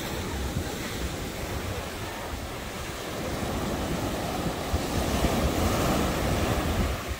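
Ocean surf breaking and washing up the beach, with wind buffeting the microphone. The surf swells louder a few seconds in and eases near the end.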